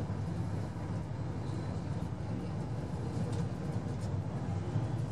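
Inside a JR West KiHa 189 series diesel railcar running at speed: a steady low rumble of the diesel engines and running gear, with wheel and rail noise.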